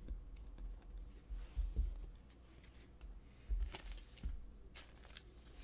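A stack of trading cards being handled and sorted in the hands: a few faint slides and soft taps.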